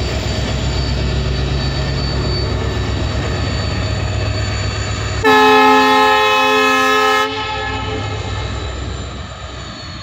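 Indian Railways diesel locomotive running hard as it hauls an express out of the station, passing close by. About five seconds in, a train horn sounds once for about two seconds, the loudest sound here; afterwards the engine noise fades as the train pulls away.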